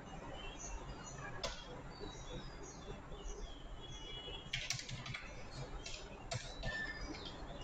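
Computer keyboard keystrokes: a single click about a second and a half in, then a quick run of clicks in the second half as a short date is typed. Faint high chirps sound throughout in the background.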